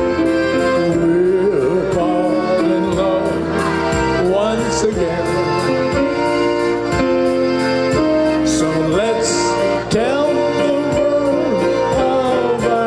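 Live polka music on accordion with electronic keyboard accompaniment and a steady beat.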